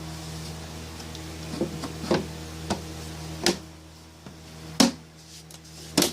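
Handling of a Mac Pro tower case: about six sharp knocks and clicks, the loudest near the end, over a steady low hum.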